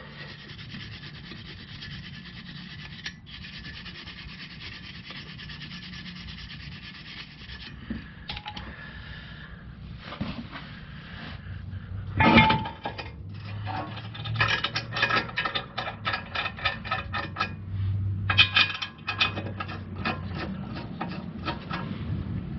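A Nissan Armada front brake caliper bracket being scrubbed clean by hand: a steady rasping rub in rapid strokes, breaking later into quicker uneven strokes with metal clinks and one louder clank about twelve seconds in.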